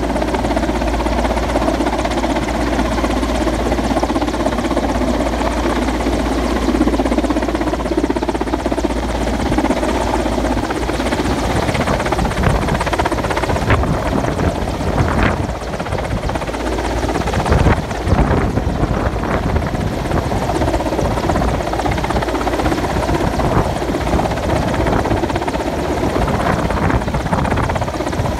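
Mi-8MTV helicopter's rotors and twin turboshaft engines running steadily as it hovers and flies low overhead with an underslung load on a long sling. From about ten seconds in, irregular low rumbles of wind buffeting the microphone come through under the rotor noise.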